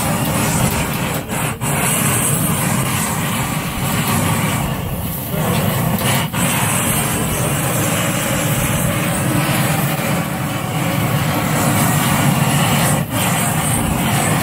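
Handheld gas torch, fed by a hose, burning steadily as its flame sears cubes of meat on a wire grill: a loud, even rushing noise with a few brief dips.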